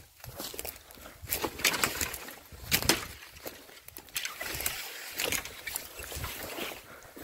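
Dry branches and undergrowth rustling and snapping as someone forces a way through a thicket, a run of irregular sharp crackles and brushing noises.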